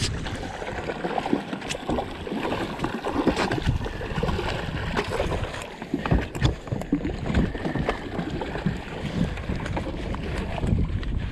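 A hooked longtom splashing and thrashing at the surface beside a small boat, with water lapping at the hull and wind on the microphone. Scattered short knocks and clicks come from handling the rod and gear.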